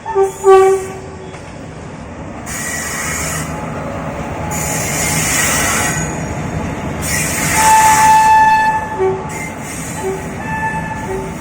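Indian Railways train horn sounding two short, loud blasts right at the start, then the rumble of the train running, growing louder in the middle with a steady high tone about eight seconds in.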